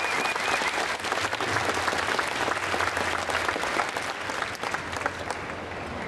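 Large indoor audience applauding, a dense patter of many hands clapping that thins out and softens over the last second or two.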